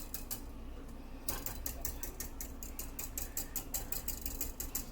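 Gas stove spark igniter clicking rapidly and evenly, about six clicks a second, as the burner knob is turned, with a pause of about a second near the start.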